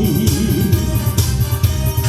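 Accompaniment music in an instrumental break between sung verses: a steady drum-kit beat with bass, and a wavering lead melody line.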